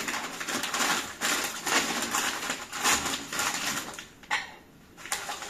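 Newspaper rustling and crumpling as crockery is wrapped in it for packing, with light clinks of dishes knocking together. There is one sharper click about four seconds in.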